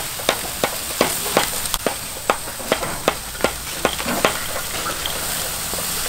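Beef sizzling on a barbecue grill grate: a steady hiss with irregular sharp pops and crackles, about two or three a second.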